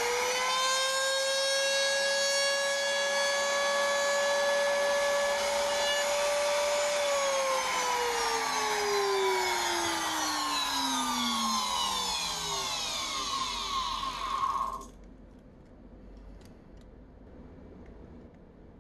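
Electric router in a router table running at speed with a steady high whine while a test groove is cut in a scrap strip, then switched off and winding down with a falling whine. The sound stops abruptly about fifteen seconds in, leaving faint room noise.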